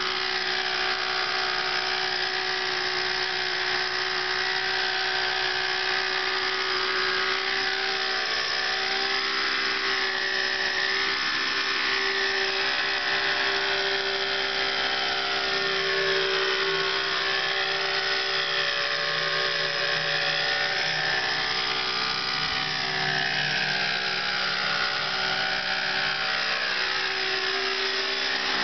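Thunder Tiger Raptor 50 RC helicopter in hover, its two-stroke glow-fuel (nitro) engine running steadily with the main rotor's whir. It makes a continuous high-pitched buzzing whine whose pitch wavers slightly up and down.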